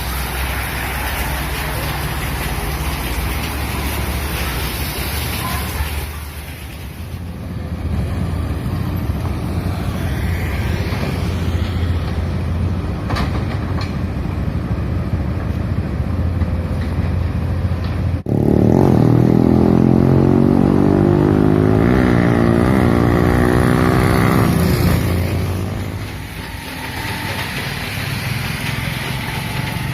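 Steady noise of wind and rain outdoors. After an abrupt change about two-thirds of the way through, a motor vehicle's engine runs loudly for about six seconds, its pitch shifting, before the wind and rain noise returns.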